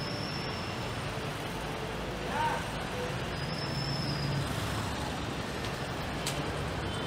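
City street ambience: steady traffic noise from passing vehicles mixed with background voices, with a brief pitched sound about two and a half seconds in.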